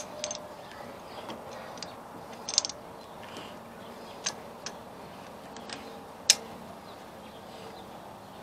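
Scattered light clicks and taps as a hose is worked onto a riding-mower carburetor with a spring hose clamp held open by pliers. The sharpest click comes about six seconds in.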